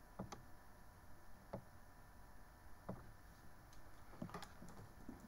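Faint, short clicks over quiet room tone, roughly one every second and a half, then a quicker cluster of several clicks about four seconds in.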